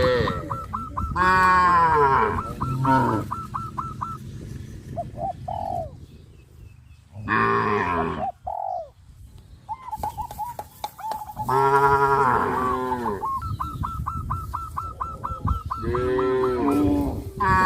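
Cattle mooing several times, each moo a long, deep call. Between the moos a bird calls in quick runs of short, evenly repeated high notes.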